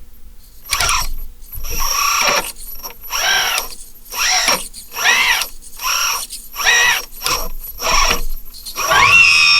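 Kabolite K963 1/16-scale hydraulic RC bulldozer's electric motors and hydraulic pump whining in short blips, about nine in a row, each rising and falling in pitch as the controls are worked. Near the end comes one longer, steadier whine.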